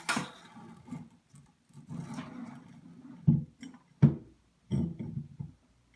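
Handling noise from the faucet's flexible supply hoses being fed through the base seal: low rubbing, then a few dull knocks in the second half.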